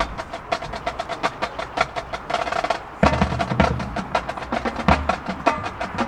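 Marching band percussion section playing a fast passage of rapid drum strokes; heavy bass drum hits come in about halfway through.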